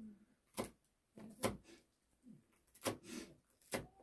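Four sharp knocks on a hard surface in a slow, somewhat uneven rhythm.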